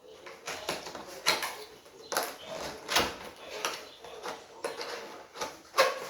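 Unboxing packaging being handled: irregular rustles, scrapes and light knocks of cardboard and packing material, with a sharper knock near the end.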